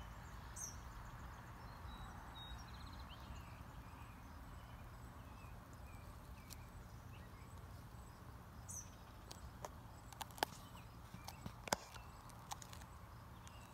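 Faint outdoor ambience with a steady low rumble. Two short high chirps come about half a second in and again near nine seconds, and a few sharp clicks fall in the last four seconds.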